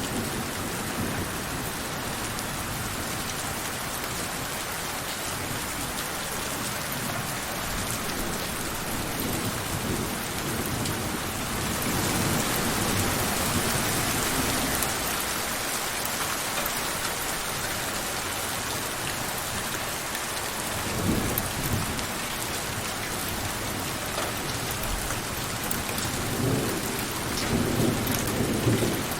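Steady heavy rain falling, with a spell of harder rain a little before the middle. Low rumbles of thunder come about two-thirds of the way through and again near the end.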